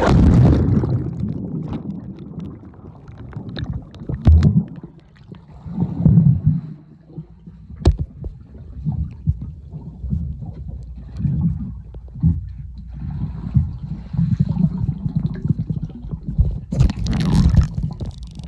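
Splash of a jump into a swimming pool, then muffled underwater rumbling and bubbling in uneven surges, heard with the microphone submerged. A brighter, splashier rush comes near the end as the camera nears the surface.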